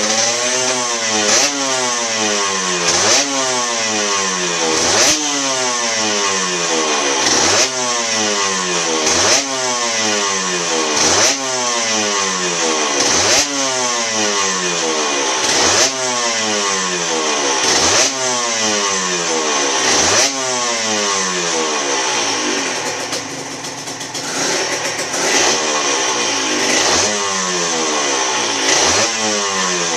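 Honda NSR150's two-stroke single-cylinder engine with a Tyga exhaust, revved in quick throttle blips about every two seconds, each one rising sharply and falling back toward idle. About three-quarters of the way through the blips stop and it idles briefly, then the revving resumes.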